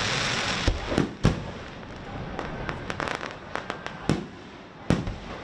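Fireworks display: shells bursting with sharp bangs, three close together about a second in and two more near the end, with a scatter of crackling in between.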